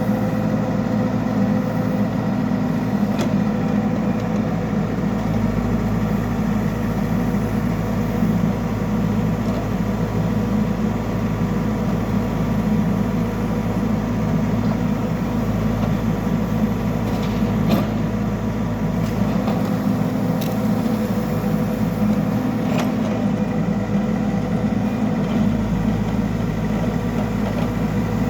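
Backhoe loader's diesel engine running steadily, with a few sharp clicks or knocks.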